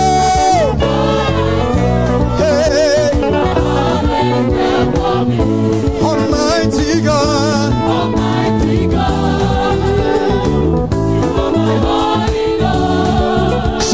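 Gospel praise music: voices singing as a choir over a steady sustained accompaniment.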